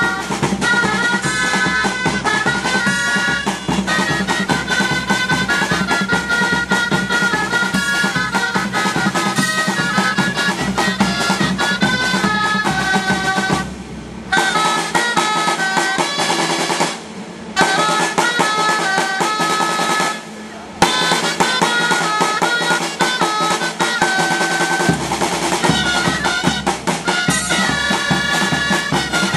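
Gralla (Catalan shawm) and drum music: reedy melody lines over a steady drum beat with drum rolls. The music drops out briefly three times around the middle.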